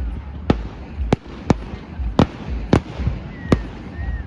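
A fireworks display: about six loud, sharp bangs in uneven succession over a low rumble, with a faint short whistle near the end.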